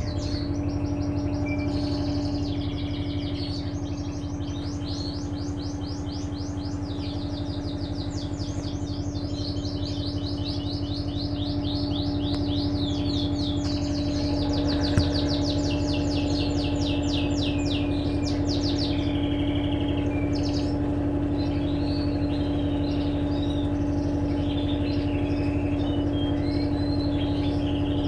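Electrolux LTE12 top-loading washing machine running with a steady motor hum. Over it, birds chirp in fast repeated trills for most of the first two-thirds, then more scattered calls near the end.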